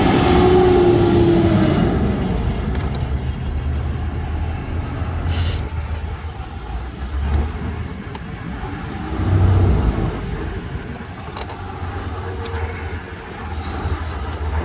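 Motor vehicle running nearby: a steady low rumble with a tone that sinks in pitch over the first two seconds, like a vehicle going past. A short light click about five seconds in.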